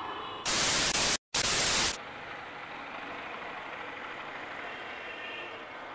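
A loud burst of hissing white-noise static, about a second and a half long, starting about half a second in and cutting out completely for a moment in the middle. After it, only a steady faint background hiss.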